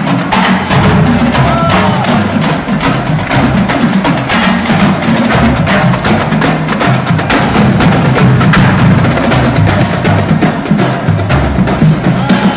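Marching drumline playing a fast, loud cadence: rapid snare and tenor drum strokes over bass drum hits, with cymbals.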